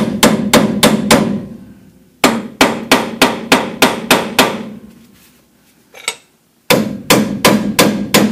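Ball-peen hammer striking the end of a Dana 44 front axle's stub shaft, metal on metal, to drive it out of the spindle. Three runs of quick ringing blows, about four a second, with short pauses between the runs.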